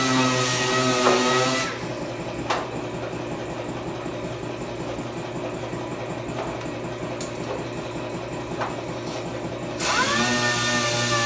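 A handheld electric power tool running at a steady pitch, switched off about a second and a half in. A few light clicks follow in the quieter gap, then the tool spins back up with a rising whine near the end.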